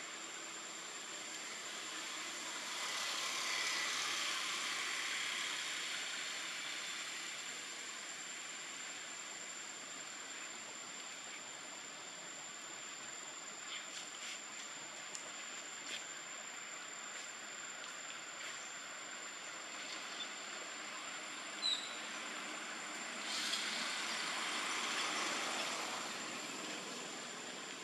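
Outdoor background noise: a steady hiss that swells twice, with a few faint clicks and a short high chirp about 22 seconds in.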